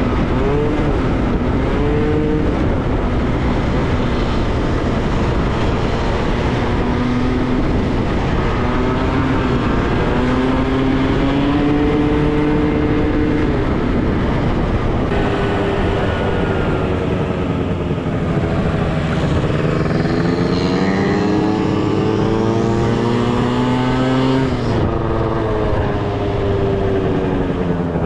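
Moped scooter engine running under way, its pitch rising and falling with the throttle, over a steady rush of wind on the microphone. About 25 seconds in, the engine note drops sharply as the throttle closes.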